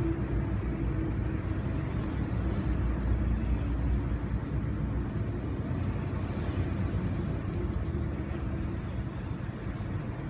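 Steady low rumble of background noise, with a faint steady hum.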